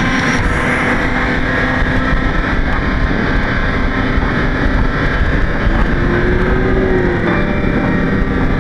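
Kawasaki Versys 650's parallel-twin engine running at a steady pace on the road, with wind noise on the microphone.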